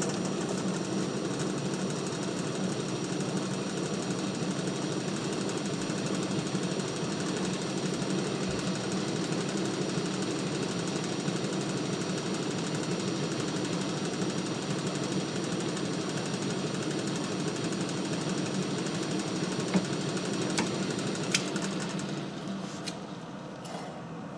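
Machine tool motor and drive running steadily while a center drill spot-drills a center mark in a small steel part; the running sound eases off near the end.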